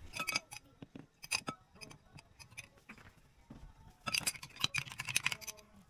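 A metal spoon clinking and scraping against a drinking glass in irregular clusters of taps, the loudest group about four seconds in, as a powdered herb dressing mix is stirred together with water and oil.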